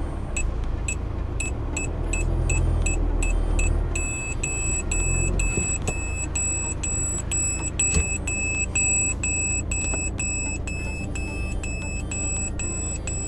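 Aftermarket car parking sensor buzzer beeping in short high beeps, about two a second at first and then faster, about three a second, from about four seconds in. The quickening beeps warn that the reversing car is closing on an obstacle behind it, down to about 30 cm.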